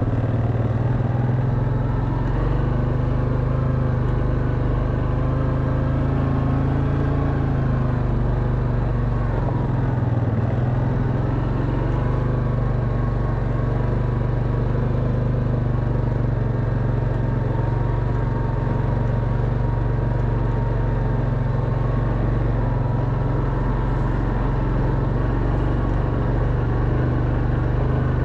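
Quad bike engine running steadily under load as it climbs a steep track, its pitch drifting slightly up and down.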